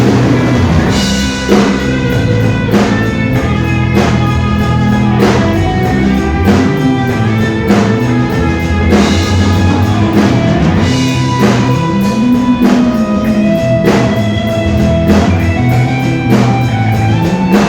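Rock band music: electric guitar and bass over a drum kit keeping a steady beat, with no singing.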